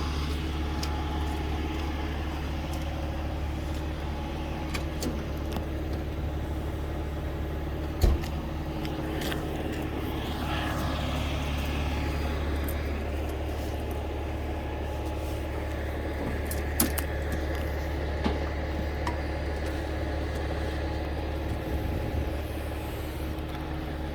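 A tow truck's engine idling steadily, with a sharp metallic clank about a third of the way in and a few lighter clicks later.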